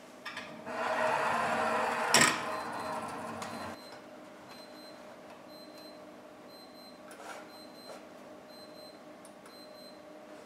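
Lab dynamics cart rolling along an aluminium track with a steady rattling rumble, striking the force sensor with one sharp knock about two seconds in and rolling on for a moment before stopping. A couple of faint clicks follow later.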